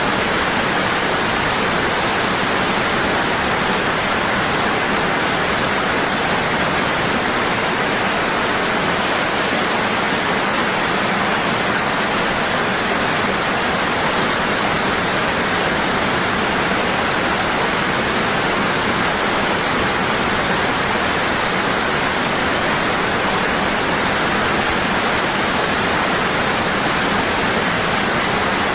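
Waterfall falling strong and steady: an even, unbroken rush of water with no changes.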